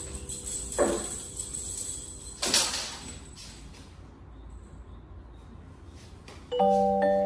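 A short sound falling in pitch, then a sharp knock, then a quiet stretch; near the end a bright chiming tune with mallet-like notes starts.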